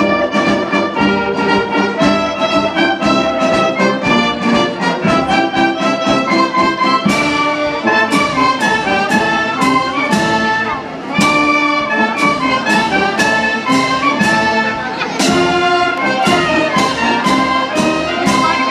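Wind band playing live: clarinets, saxophones and brass together, with percussion hits coming in steadily from about a third of the way through and a short drop in level a little past the middle.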